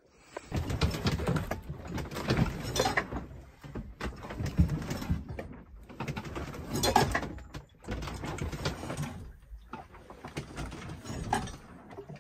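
Sailboat rolling in a swell with no wind: irregular creaks from the hull and rig, with gear knocking and rattling below.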